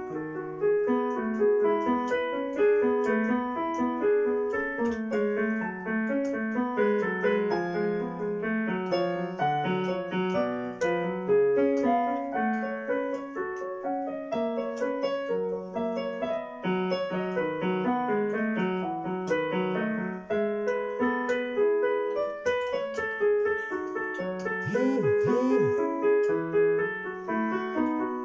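Portable electronic keyboard played with a piano voice: a continuous run of notes in a classical keyboard piece.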